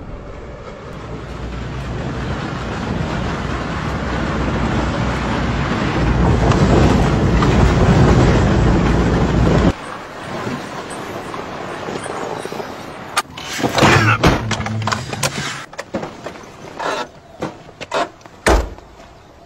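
A car driving on a dirt track, its engine and tyre noise growing steadily louder until it cuts off about ten seconds in. Then comes a louder stretch as the car pulls up, followed by several sharp knocks and clicks of its doors being opened and shut.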